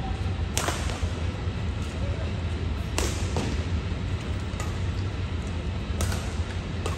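Badminton rackets striking a shuttlecock during a rally: sharp cracks a few seconds apart, four in all, the first under a second in and the last two close together near the end. A steady low hum runs underneath.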